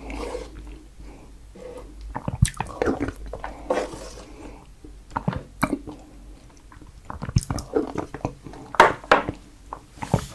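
Close-miked chewing of fresh strawberries, with irregular sharp mouth clicks and smacks.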